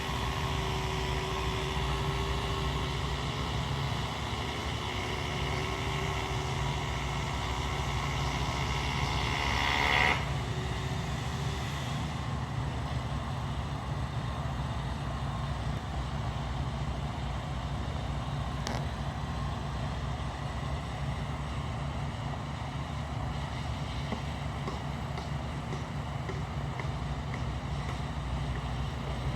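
Heavy vehicle engine running steadily. A high whine over it swells to a peak about ten seconds in and then stops.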